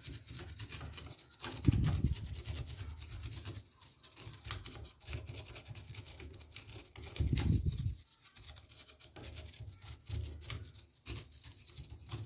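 A brush scrubbing the bottom of a bare power-supply circuit board wet with isopropyl alcohol, in quick scratchy strokes, with two louder low thumps about two seconds in and again about seven seconds in.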